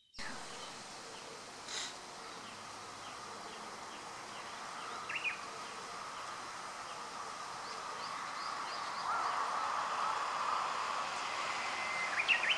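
Quiet outdoor ambience: a steady faint hum that grows a little louder after about nine seconds, with a few short, faint chirps.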